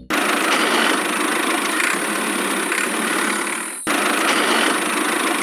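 A small engine running steadily, a dense mechanical rattle with little deep rumble. It breaks off abruptly once, a little under four seconds in, and resumes at once.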